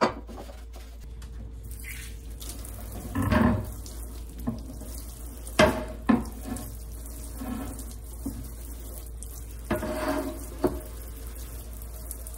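Kitchen faucet running water into a sink as a metal gas-stove grate is rinsed under it, with the grate clanking against the sink several times.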